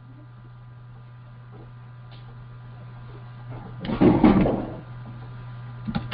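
Steady low electrical hum, with a brief loud muffled noise about four seconds in and a couple of faint clicks near the end.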